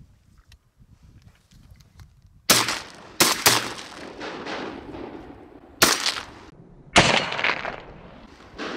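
A volley of shotgun shots fired at ducks: four or five sharp blasts over about five seconds, starting about two and a half seconds in, each trailing off in a long echo.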